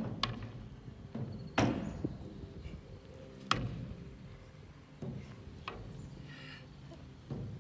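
Skateboard knocking on concrete and ramps: a handful of sharp separate clacks a second or two apart, the loudest about one and a half seconds in.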